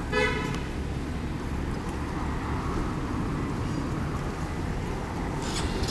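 Steady low background rumble, with one short high-pitched squeal right at the start and a few light clicks near the end.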